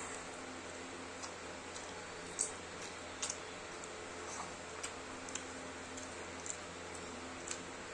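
Scattered soft clicks and wet smacks of someone eating rice and curry, mouth and fingers working the food, over a steady background hum; the sharpest click comes about two and a half seconds in.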